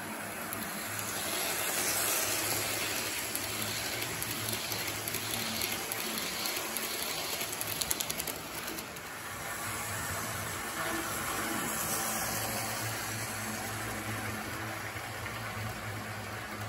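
Model train running on its track: the wheels roll and click over the rail joints over a steady low hum, with a quick run of clicks about eight seconds in as the cars pass close by.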